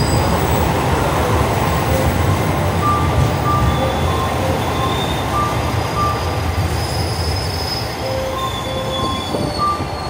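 Chizu Express HOT7000-series diesel limited-express train running slowly along the platform as it brakes to a stop. A heavy rumble slowly dies away, with thin high squeals from wheels and brakes. From about three seconds in, short beeps on two alternating pitches repeat.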